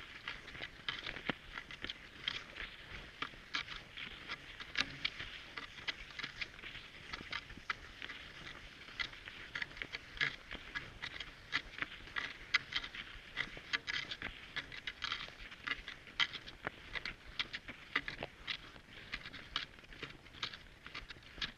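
Cross-country skis and poles on snow: an irregular run of short crunches and clicks, several a second, over a light steady hiss of the skis gliding.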